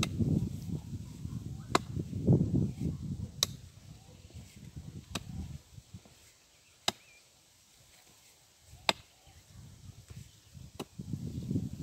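Steel digging hoe (enxada) striking rocky soil, six sharp chinking blows about two seconds apart. Rough scraping and rustling of loose earth is heard in the first half and again near the end. The ground is full of stones, which make the hoe bounce off.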